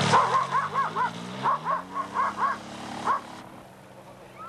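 A dog barking in a rapid run of short yips, about nine over three seconds. Under the barking, the engine of a motorised hang glider on the water rises in pitch as it speeds up, then holds steady and fades.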